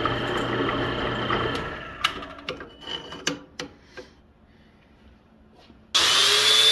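Electric drill running steadily as it bores holes in steel with a 1/8-inch high-speed steel bit, winding down after about a second and a half. A few clicks and knocks follow, and near the end a louder power tool starts up with a hissing whir and a slightly rising whine.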